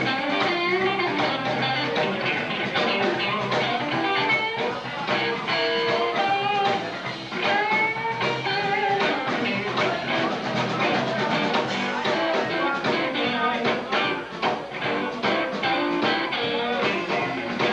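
Rock band playing, with electric guitar to the fore over bass and drums.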